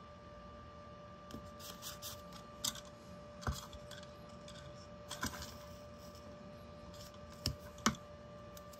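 Masking tape being handled on a cutting mat: scattered light clicks and rustles as tape is pulled from its dispenser, cut and pressed down, the sharpest clicks about three and a half seconds in and twice close together near the end. A faint steady hum sits underneath.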